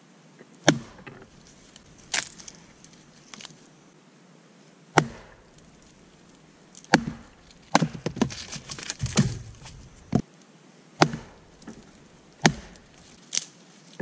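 A hatchet splitting short logs: the blade is set in the end of a log and the two are knocked down together onto a hard fallen log. About ten sharp wooden knocks, spaced a second or more apart, with a quick run of cracks about eight to nine seconds in as a piece splits through.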